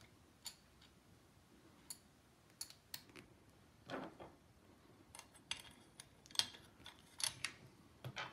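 Small metal parts of a Crosman 102 air rifle's repeating mechanism clicking and tapping as they are fitted back into the receiver by hand: a dozen or so scattered light clicks, with a duller knock about four seconds in.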